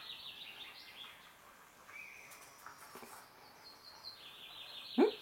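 Small songbird singing repeated quick trilling phrases in the background, and a kitten giving one short, loud meow near the end.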